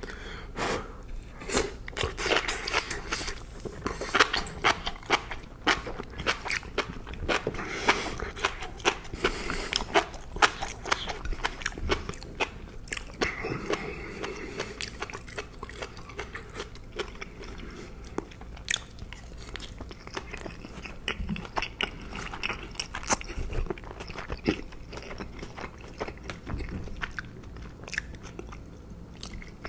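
A person chewing food close to the microphone: a long run of sharp mouth clicks, densest in the first dozen seconds and sparser after.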